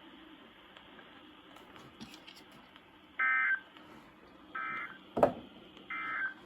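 Three short buzzy digital data bursts from a NOAA Weather Radio broadcast, about a second and a half apart: the SAME end-of-message code that closes the weekly test. A single sharp thump falls between the second and third burst.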